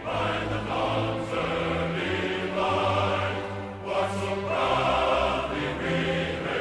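Background music: a choir singing sustained chords that shift every second or so.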